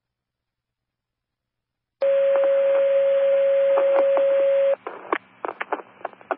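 A radio transmission opens about two seconds in with a loud, steady single alert tone over radio hiss, held for nearly three seconds, of the kind sent before a fire/EMS dispatch. The tone stops abruptly and the open channel crackles with clicks and pops.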